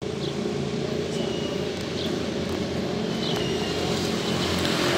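An engine running steadily at idle, with a few faint short high chirps over it.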